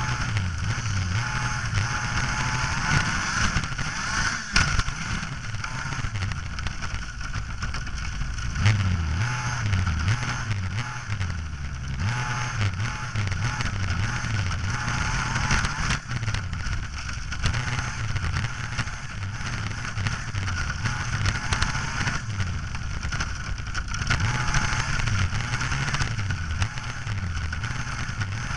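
Small engine of a radio-controlled model car driving across grass, its pitch repeatedly rising and falling as the throttle changes.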